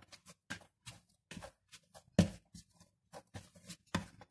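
A hand kneading soft yeast bread dough in a plastic bowl: a run of short, irregular squelches and slaps, with a louder thump about two seconds in and another near the end.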